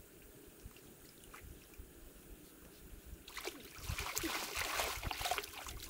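Water splashing and sloshing from a golden-doodle puppy swimming and a man wading in a shallow river. It starts about three seconds in, after a faint steady trickle, and keeps going, choppy and irregular.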